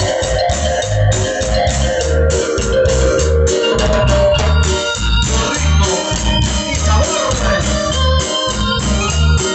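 Music with a steady bass beat, about two bass notes a second, sustained keyboard tones, and regular high percussion ticks.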